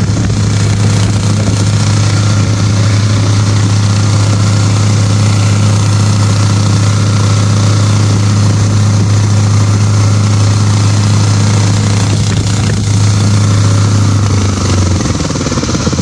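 Small petrol generator engine mounted on the front of a motorcycle, running steadily at high speed as it spins a large propeller fan; near the end its pitch drops as it slows.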